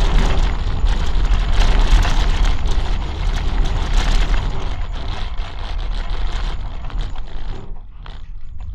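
Tram running along its track: a loud, steady rumble with dense rattling of wheels on rails, growing quieter over the last few seconds.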